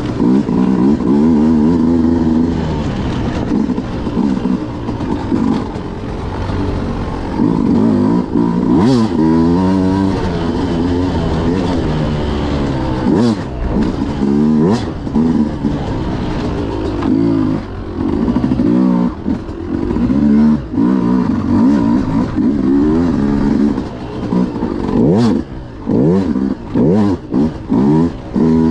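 Beta RR 200 two-stroke enduro motorcycle engine being ridden hard, revving up and down over and over as the throttle is opened and closed and gears change. A few sharp knocks and some clatter from the bike come through along the way.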